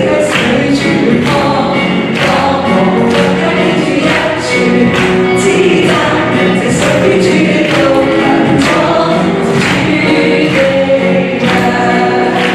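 A live worship band playing a hymn medley, a female and a male lead singer with backing voices over keyboard, electric guitar, bass guitar and drums. A steady beat of about two strikes a second runs under the singing.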